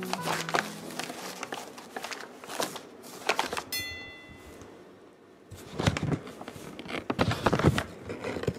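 Paper gift bag rustling and crinkling in irregular bursts as it is pushed into and handled, busiest in the second half. A brief ringing chime sounds about three and a half seconds in.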